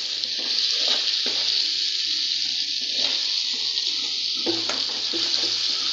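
Chopped tomatoes, green chilies and fried onions sizzling steadily in hot oil in a metal wok, stirred with a metal spoon.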